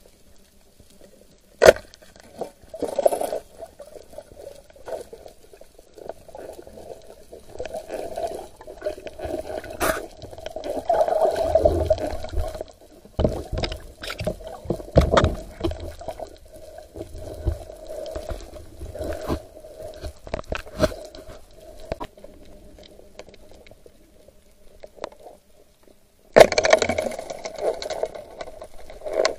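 Water sloshing and gurgling against the camera, with scattered scrapes and knocks: a sharp knock about two seconds in, a rumbling stretch in the middle, and a sudden loud rush of water noise near the end.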